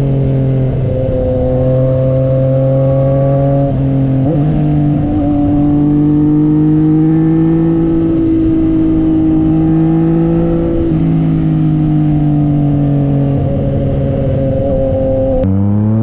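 Naked motorcycle's engine running at road speed, heard from the rider's helmet mic over a rush of wind noise. The engine note climbs gently and drops back twice, about four and eleven seconds in.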